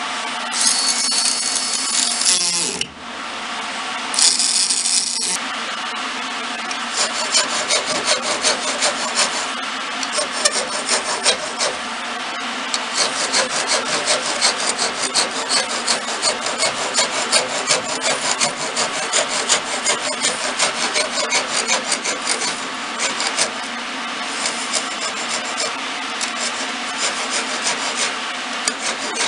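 A coarse rasp drawn by hand along the spiral groove of a twisted wooden spindle, in steady rhythmic strokes of about two a second, over a steady machine hum. Two short bursts of harsher, higher scraping come in the first few seconds.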